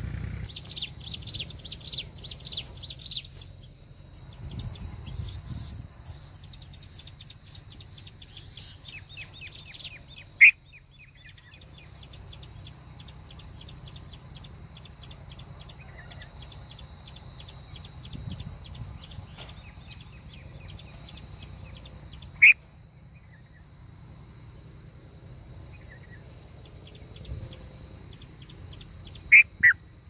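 Birds chirping and calling: dense fast high chirps for the first few seconds, then a long run of quick repeated ticking notes. Four loud, sharp, short calls break in: one about a third of the way in, one about three-quarters of the way in, and two close together near the end.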